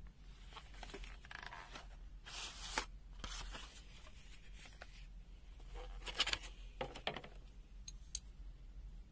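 Clear plastic blister packaging being handled and pulled open, rustling and crackling in two bursts, with a few sharp clicks near the end.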